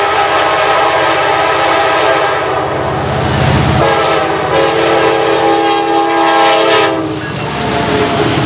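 Diesel freight locomotive's air horn sounding two long blasts, the first breaking off near the middle and the second ending about seven seconds in, over the low running of the EMD diesel engines as the lead unit passes close by.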